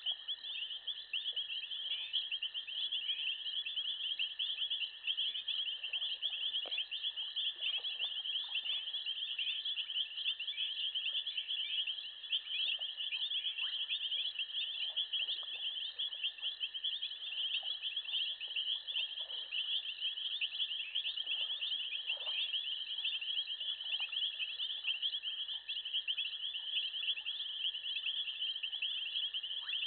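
Insect chorus: a dense, fast, high-pitched trilling that runs on unbroken over a steadier, lower continuous tone, with a few faint lower calls here and there.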